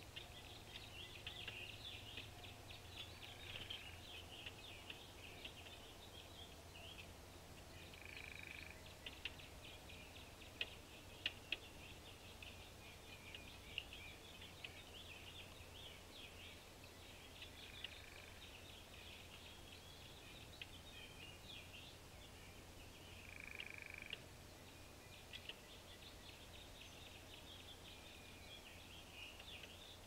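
Faint outdoor bird sounds: rapid small chips and calls throughout, with three short two-note calls several seconds apart and a few sharp taps, over a low steady hum.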